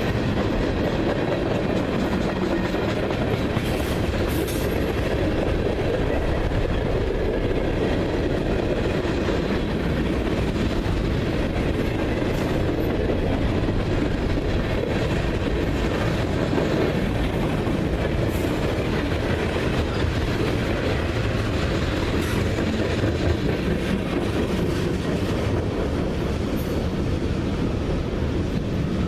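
Freight train rolling past at a steady pace, a continuous rumble of steel wheels on rail with occasional faint clicks from the wheels.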